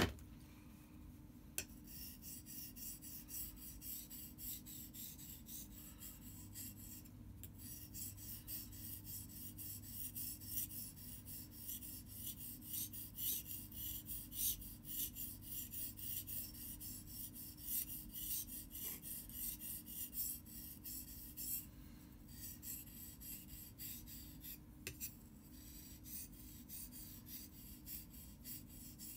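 Survival knife's steel blade being stroked back and forth on a wet whetstone, a rhythmic rasping scrape of about two strokes a second. It starts about two seconds in and breaks off briefly twice.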